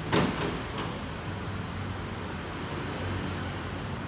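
A car door shuts with one solid thump right at the start, followed by two lighter clicks within the next second. A steady low hum continues underneath.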